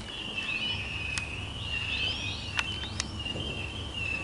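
Distant fireworks: a continuous high whistling that rises in pitch again and again, about once a second, with a few sharp cracks.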